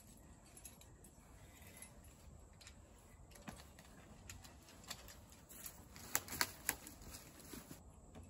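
Metal climbing gear clinking: light, scattered clicks, with a quick run of three sharper clinks about six seconds in.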